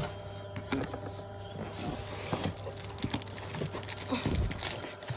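Cardboard shipping box being handled and tipped, its flaps scraping and rustling with irregular small knocks, as a leather lever belt is worked out of the tight box. A steady low hum runs underneath.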